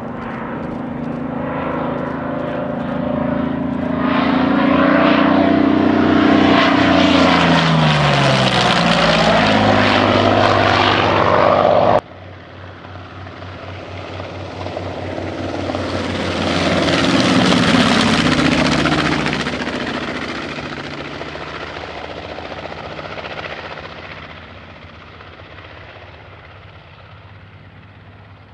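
A single-engine WWII warplane's piston engine flies past, its pitch dropping as it goes away, cut off sharply about twelve seconds in. Then a PBY Catalina's two Pratt & Whitney R-1830 radial engines run through a low flyby, loudest a few seconds after the cut and fading away toward the end.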